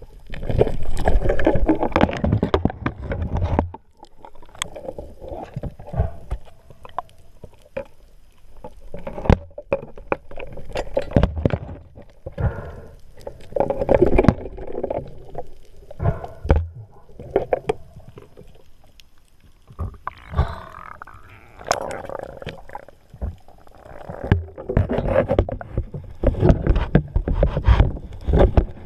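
Water sloshing and gurgling around a camera in the sea as a spearfisher handles gear, with swells that come and go irregularly. Many sharp clicks and knocks are scattered through.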